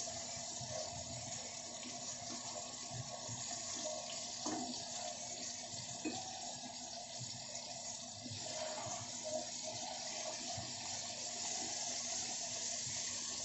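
Pork slices and tofu frying in oil in a pan: a steady sizzle.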